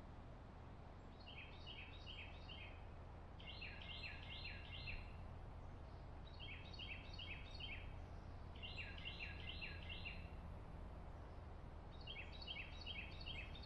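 A songbird singing five short phrases, each a quick run of repeated high notes lasting about a second and a half, a few seconds apart, over a faint low outdoor rumble.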